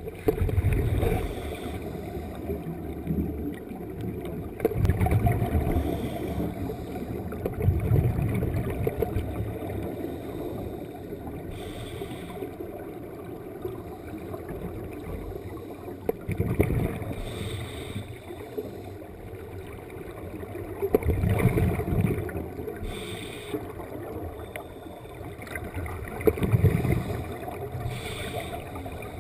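A scuba diver's regulator breathing underwater: low bubbling surges of exhaled air several times, a few seconds apart, with short hisses of inhalation between some of them.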